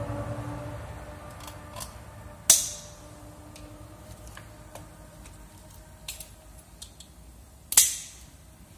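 Hands working on a car's ignition distributor and its cap with the engine off, making light plastic and metal clicks. Two much louder sharp snaps come about two and a half seconds in and just before the end.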